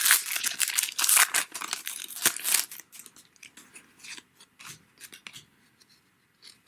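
A 2018 Donruss baseball card pack's wrapper being torn open and crinkled for about three seconds, then softer light ticks of the cards being handled.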